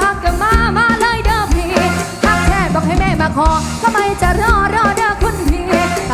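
A live band plays an upbeat Isan lam (mor lam) interlude: a lead melody with heavy bends and wavering pitch over a steady drum beat and bass.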